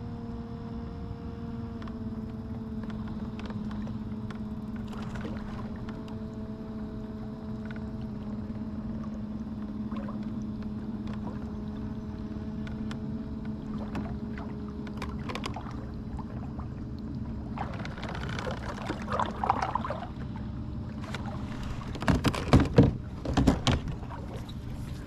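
Steady hum of the kayak's motor, several even tones whose pitch sinks slowly before dying away past the middle. Near the end come several loud knocks and clatter against the kayak.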